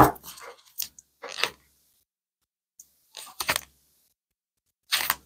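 Irregular handling noises: a sharp knock at the start, then scattered short clicks and crunchy rustles in three brief clusters, with silence between them.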